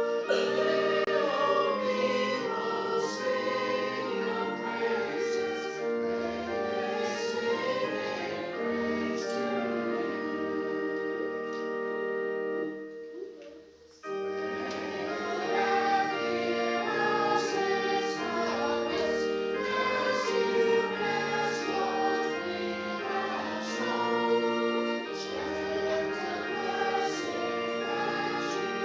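Congregation singing a hymn with held keyboard accompaniment. The music dies away about thirteen seconds in, then starts again a second later for the next verse.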